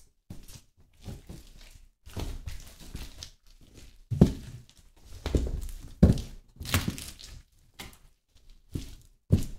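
High-heeled pumps stepping and grinding into squashed food on a metal tread-plate floor: irregular heel thunks, with the food squashing underfoot between them. The hardest impacts come a little after four seconds and around six to seven seconds.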